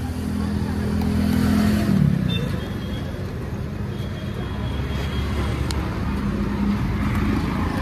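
KTM Duke motorcycle's electric starter cranking for about two seconds and then winding down with a falling pitch, the engine not catching. The bike won't start, which the owner puts down to a failed fuel injector. A steady low vehicle rumble follows.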